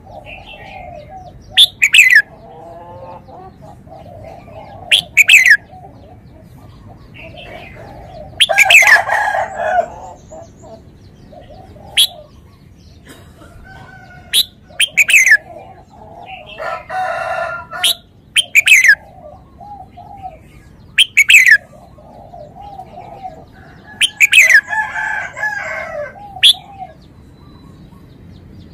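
Red-whiskered bulbul calling: loud, sharp whistled notes that sweep steeply downward, often in pairs, every few seconds, over a steady lower chattering.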